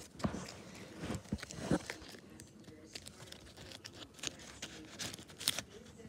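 Hands handling a crinkly wrapped packet: rustling and crinkling, with scattered light clicks and taps.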